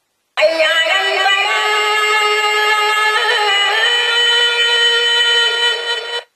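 Azaan alarm clock playing a recorded call to prayer: one long, drawn-out sung phrase of about six seconds. It steps up in pitch near the middle, then starts and stops abruptly.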